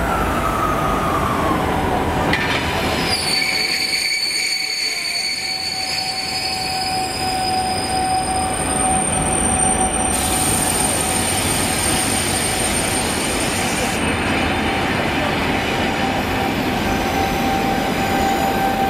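Passenger coaches rolling slowly along the platform line, a continuous rumble with the wheels squealing. A whine glides downward at the start, then several steady high-pitched squeals set in about three seconds in and hold.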